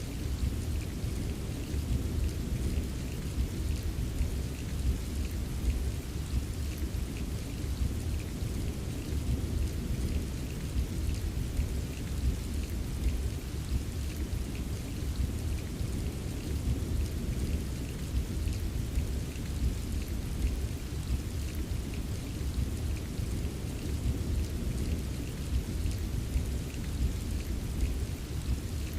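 Steady rain falling, with fine patter of drops over a constant deep rumble of thunder.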